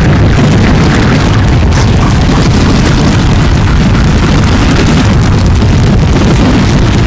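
Turntable noise improvisation through a mixer: a loud, dense, steady wall of low rumbling noise with hiss above it.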